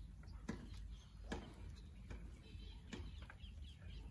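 Pigeons pecking at grain in a shallow feeding tray: scattered faint clicks and taps, with a few faint bird chirps.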